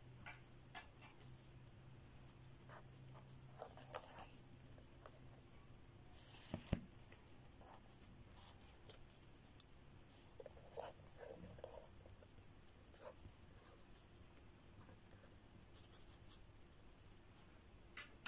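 Faint scratching and small taps of a marker pen writing on paper, with one sharper tap partway through.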